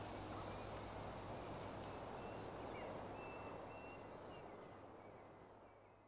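Faint seaside ambience, a steady hiss of surf, slowly fading out. Small birds chirp in quick groups of three, once about four seconds in and again near the end.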